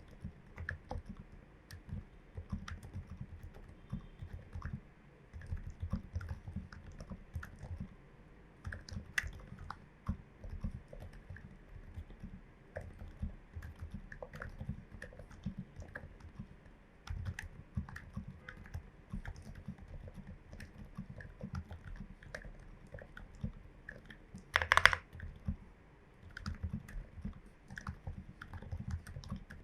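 Steady typing on a Glorious GMMK Pro mechanical keyboard with lubed, filmed switches and MT3 keycaps: a dense, irregular stream of soft, low keystrokes, with one much louder clack about 25 seconds in.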